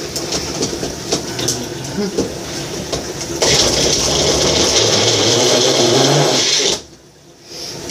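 Personal cup blender running, chopping raw beef heart and vegetables toward a paste. The motor gets much louder about three and a half seconds in, then cuts off abruptly near the end.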